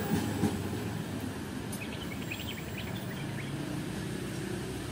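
Low rumble of a passing train fading away over about the first second, leaving a steady low hum. A few short bird-like chirps come about halfway through.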